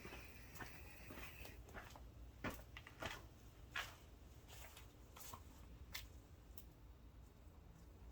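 Near silence: room tone with a few faint sharp clicks and taps. There is no engine running.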